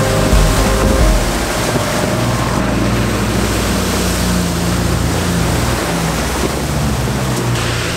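Diesel four-wheel drives ploughing through a muddy water hole: engines running under load beneath a steady rush of water and mud spraying up from the wheels.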